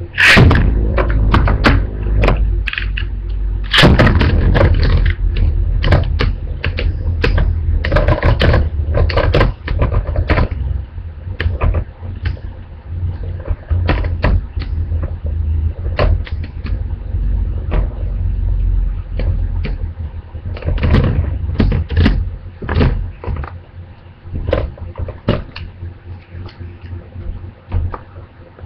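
Beyblade spinning tops battling in a plastic stadium, one of them a homemade top made from two Beyblades taped together. There is a low whirring rumble from the spinning tops, with repeated sharp clacks as they strike each other and the stadium walls. The rumble thins out after about twenty-two seconds, leaving scattered clicks.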